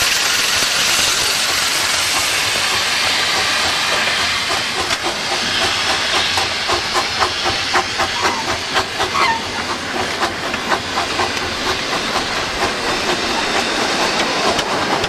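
A 15-inch gauge live-steam locomotive running, heard from just behind the engineer: a steady hiss of steam. A quick, regular clicking beat from the train is heard for several seconds in the middle.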